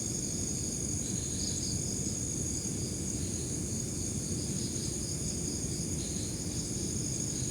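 Night insects, crickets, chirring in a steady high-pitched drone, with a second pulsing trill a little lower in pitch, over a constant low rumbling noise.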